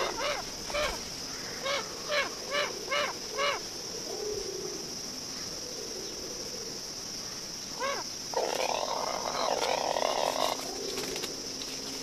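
Abbott's booby calling: a quick run of six short calls in the first few seconds, a single rising call about eight seconds in, then a hoarse call lasting about two seconds. A steady high insect drone runs underneath.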